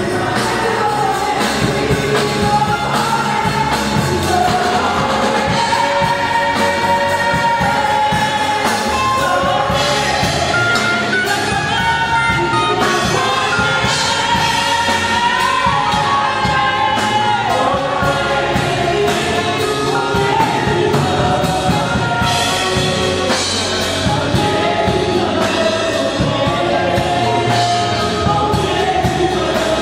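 Live gospel choir singing, led by a woman and a man on microphones, with the choir answering behind them over a drum kit and band.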